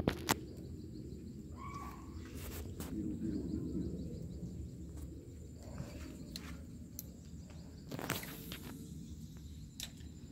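Handling of fishing tackle: a few sharp clicks right at the start as a lure is fastened to the line, then a steady low rumble with scattered small clicks and a brief louder rush about eight seconds in.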